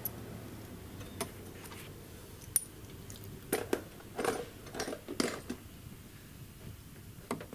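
Scattered light metallic clinks, taps and clicks of hand tools and small car parts being handled, with a sharp click about two and a half seconds in and a cluster of louder knocks in the middle.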